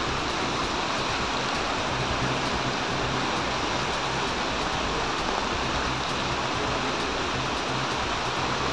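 Storm runoff from heavy rain rushing along a flooded street: a steady, even rush of flowing water.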